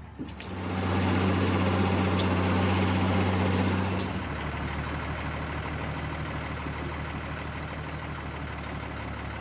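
Mobile crane's engine revving up about half a second in and running hard as it works the lift, then dropping back to a lower, steady idle about four seconds in.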